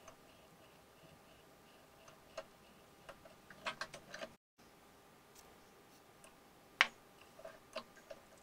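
Faint, scattered sharp clicks and light taps, with a quick cluster about halfway through and one louder click late on.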